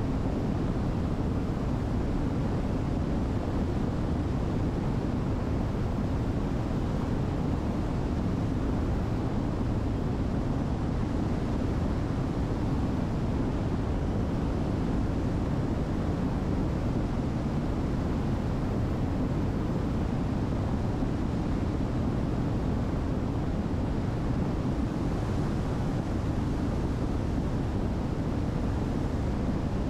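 Steady cabin noise of the Diamond DA62's twin turbo-diesel engines running at cruise power, with airflow, a dull even drone with no change in pitch.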